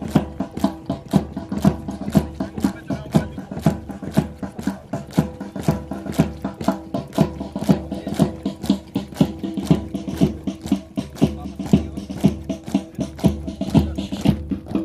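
Music with a fast, steady percussive beat over sustained tones.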